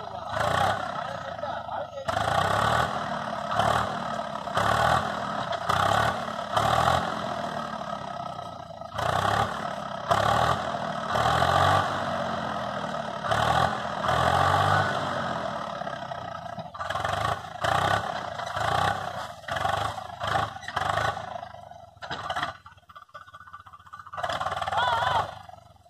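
Tractor engine running under load, driving the hydraulic tipper that raises a trailer full of manure, with people talking over it.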